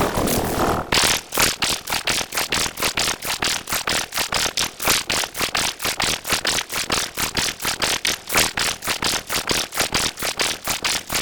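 An edited sound effect: a short noisy sample repeated in a fast stutter, about five times a second, after a different, denser burst of noise in the first second.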